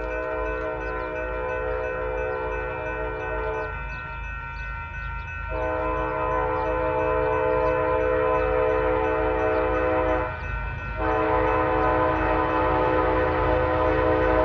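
Union Pacific freight locomotive's air horn sounding a chord in long blasts, broken off about four seconds in and again briefly about ten seconds in, over the low rumble of the passing train.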